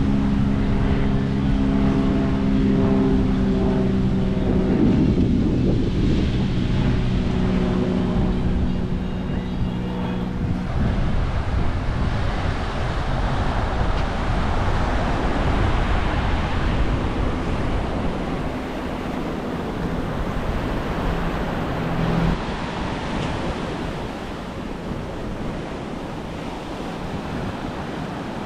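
An airplane flying over, its engine droning as a steady pitched hum over wind on the microphone, fading out about ten seconds in. After that, surf washing onto the beach with wind buffeting the microphone.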